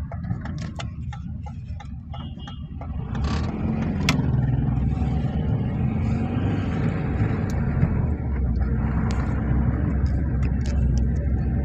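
Tata Nano's small two-cylinder petrol engine and road noise while the car is driven on the road, growing louder about three and a half seconds in.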